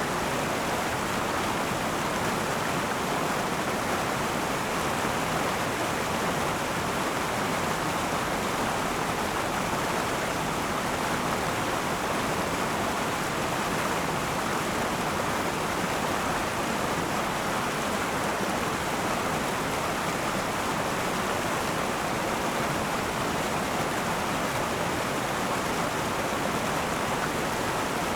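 Steady rushing and burbling of a flowing river, an even wash of water noise that does not change.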